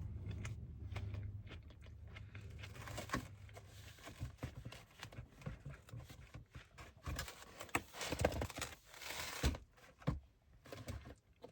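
Someone eating a burger: chewing, with the crinkle and rustle of a paper wrapper and small clicks, busiest past the middle. A low hum underneath stops about a third of the way in.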